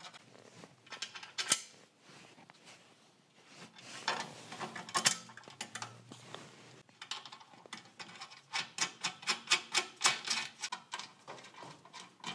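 Small steel parts clinking and clicking as a washer and nut are fitted and spun onto a bolt through a steel bracket by hand. There are scattered clinks in the first half, then quick runs of sharp metal clicks in the second half.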